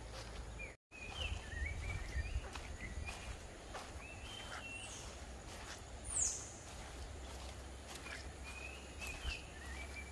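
Wild birds calling at a forest edge: short chirps and warbling phrases, and one sharp falling whistle about six seconds in, over a steady low outdoor rumble. The sound cuts out for a moment just before a second in.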